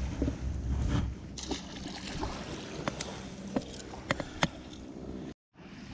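Small waves lapping at a gravel shoreline, with a low rumble of handling or wind noise in the first second. Four or five sharp clicks or taps follow in the second half, and the sound cuts out for a moment near the end.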